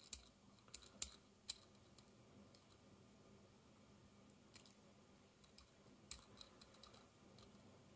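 Near silence broken by about five short, light clicks of hard plastic parts being handled: a model train chassis and a glue tube, as rubber-based glue is squeezed onto the chassis floor.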